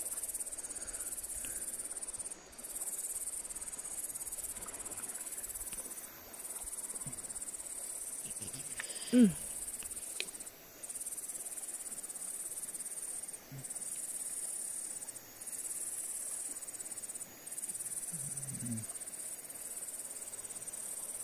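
Insects chirring in a steady high-pitched trill, broken by short pauses every couple of seconds. About nine seconds in, one short, loud pitched sound stands out.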